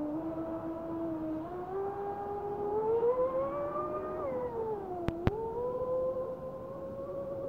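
Radio-controlled model boat's motor whining across the water, its pitch climbing as the throttle opens, dipping briefly and then rising and holding. Two sharp clicks come about five seconds in.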